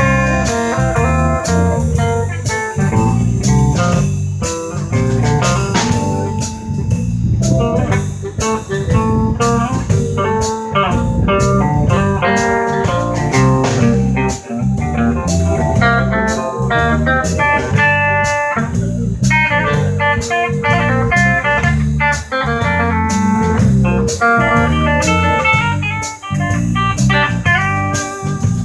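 Live blues band playing an instrumental passage: a drum kit keeping a steady beat under electric bass, electric guitar and keyboard.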